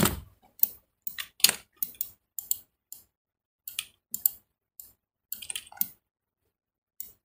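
Irregular clicking of a computer keyboard and mouse: single sharp taps and short quick runs of clicks, with brief pauses between them.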